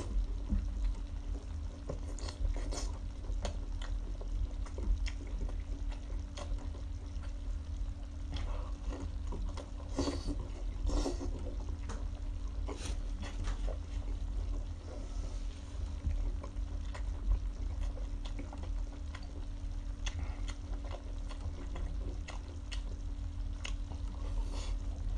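Wet mouth sounds of someone eating saucy octopus off a skewer: irregular smacks, slurps and chewing over a low steady hum.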